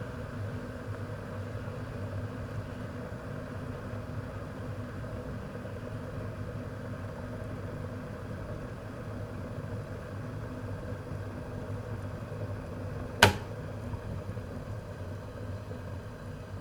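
Electric ceramic kettle boiling water with a steady rumbling hiss. A single sharp click comes about thirteen seconds in.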